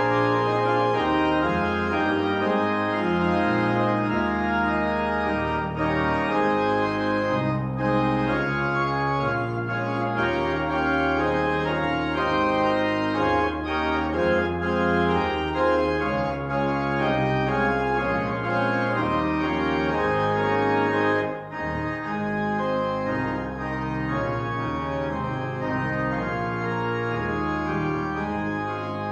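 Organ music: sustained full chords over a moving bass line, played at a steady, fairly loud level, with a brief break between chords about 21 seconds in.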